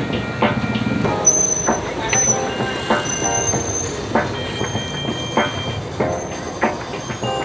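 Metal cookware and utensils clanking and scraping, a dozen or so sharp knocks, some leaving short high ringing tones.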